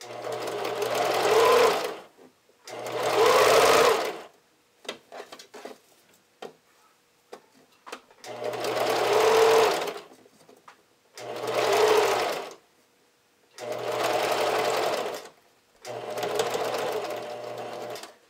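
Pfaff sewing machine zigzag-stitching elastic onto the leg-line edge of panties. It runs in six short spurts of one to two seconds each, with small clicks in the pauses between them.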